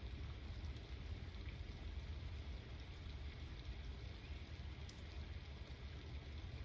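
Steady rain falling, with scattered faint drop ticks over a constant low rumble.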